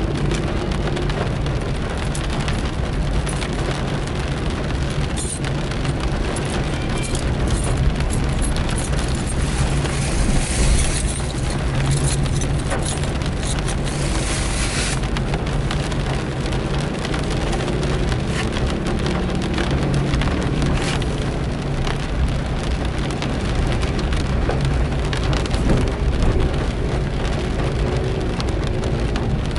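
Rain on a moving car's windshield and roof, heard from inside the car, over a steady low rumble from the road and engine and the hiss of tyres on the wet road. The hiss grows brighter for a few seconds about ten seconds in.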